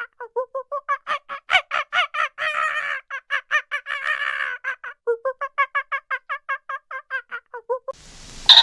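An animal calling in a fast run of short, repeated pitched notes, about five a second, broken twice by a longer held note. Near the end it cuts to a different, noisier sound with one loud, sharp call.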